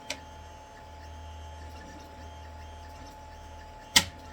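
A flexible spring-steel build sheet being laid back onto a resin printer's magnetic build plate: a faint click at the start, then one loud, sharp snap about four seconds in as it pulls down onto the magnet, over a steady low hum.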